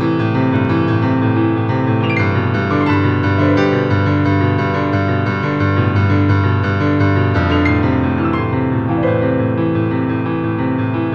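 Background piano music with sustained chords, and falling runs of notes about two seconds and seven and a half seconds in.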